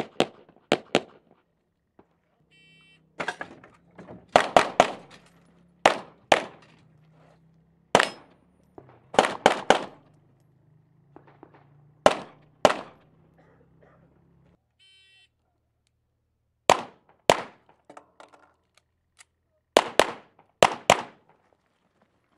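A 9mm Dan Wesson 1911 pistol fired in quick pairs and threes, about twenty shots in all, with pauses of a few seconds between strings. Each shot cracks sharply and echoes briefly.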